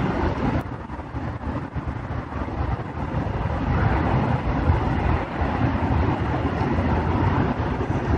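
Loud, steady rumbling noise with hiss, dipping briefly about a second in. It is the background noise of a field recording played back as a supposed EVP.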